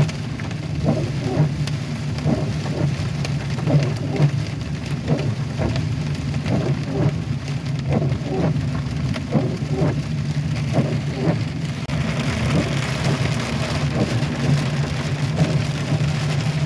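Heavy rain beating on a truck, heard from inside the cab over a steady low engine and road hum. The new windshield wipers squeak on each stroke, about twice a second. About twelve seconds in, the rain hiss grows louder.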